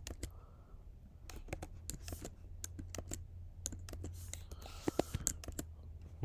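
Keys tapped on a computer keyboard while editing code: irregular sharp clicks, a few of them in quick runs, over a low steady hum.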